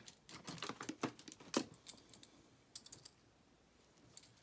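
Light, irregular clicks and taps of small hard objects being handled on a bench, with a quick little cluster of clicks near the three-second mark.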